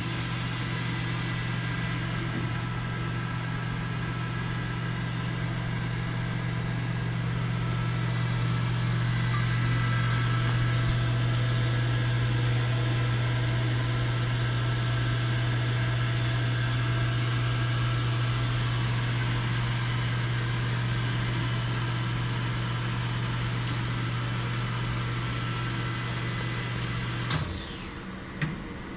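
Henkelman Boxer 52 chamber vacuum packing machine's pump running with a steady hum as it draws the chamber down to 99% vacuum. Near the end the pump stops, air hisses briefly back into the chamber, and there is a click.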